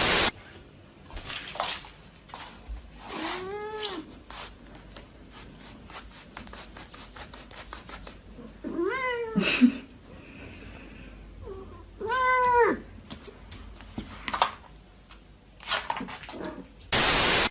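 A cat meowing three times, each a drawn-out call that rises and then falls in pitch. A short burst of loud static hiss comes at the start and again near the end.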